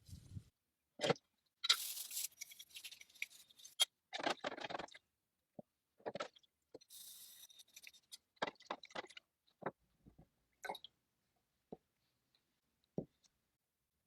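Workshop handling noises: scattered knocks and clicks, with two short spells of hissy scrubbing or scraping, about two seconds in and again around seven seconds.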